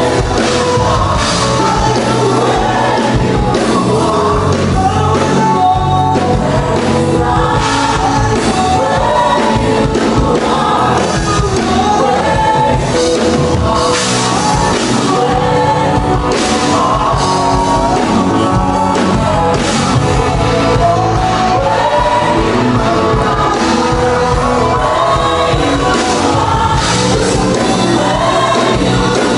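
Live gospel band with a lead singer and a backing choir: drum kit, keyboards and voices playing together, loud and steady.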